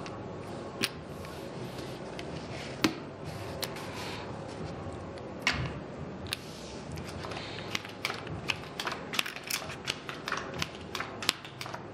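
Casino chips clicking as they are set down on the table, and playing cards snapping and sliding on the felt as a blackjack hand is cleared and a new one dealt. Sharp single clicks are scattered through it, coming quicker in the last few seconds, over steady room noise.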